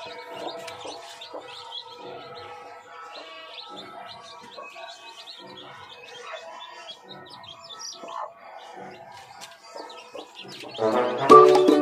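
Chicks peeping in many short, high chirps beside a hen, over faint background music. Loud music comes in about a second before the end.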